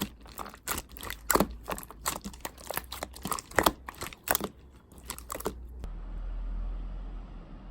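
Irregular crinkling and sharp clicks, stopping about six seconds in; a steady low hum follows.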